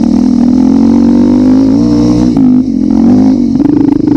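Motorcycle engine running at a steady speed, its pitch rising slightly and dipping about two seconds in, then settling into an even pulsing beat near the end.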